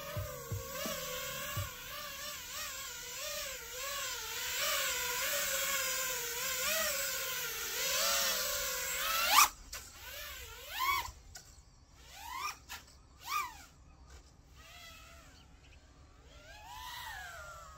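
Brushless motors of a 5-inch FPV quadcopter (Emax Eco 2 2207 1900kv) whining, the pitch wavering up and down with throttle. About halfway through they climb sharply to a loud peak and drop off. After that come several short throttle punches, each rising and falling in pitch.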